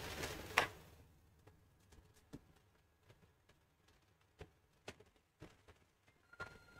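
A few faint, scattered taps and clicks, about five over several seconds, as a printed paper is handled and shifted on a desk; otherwise quiet room tone.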